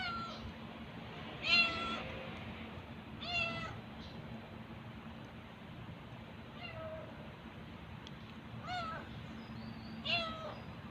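A hungry stray cat meowing for food, about six meows spaced one to three seconds apart, the second one the loudest.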